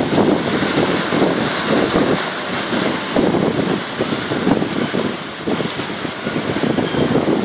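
Strong wind of about 35 knots buffeting the phone's microphone in uneven surges, over the rush of breaking seas and the sailing catamaran's wake.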